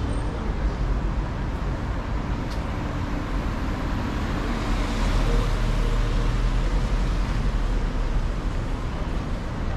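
Street traffic on wet asphalt: a car drives past, and its tyre hiss on the wet road swells about halfway through over a steady low rumble of traffic.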